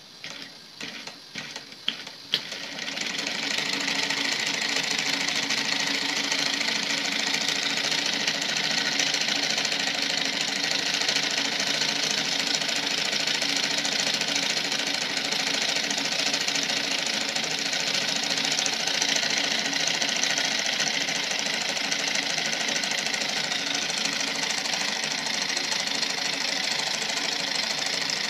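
Homemade syringe-piston steam engine, fed by a candle-heated soda-can boiler and turning a CD flywheel and small DC motor, started by a hand turn: a few separate clicks, then about two and a half seconds in it settles into running fast with a steady rapid mechanical chatter.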